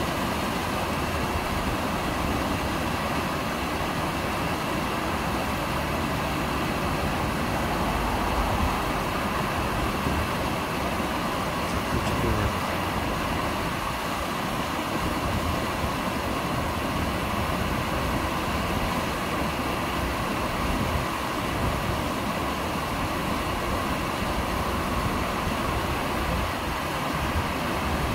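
Man-made waterfall pouring down stepped rock ledges: a steady, unbroken rush of falling water.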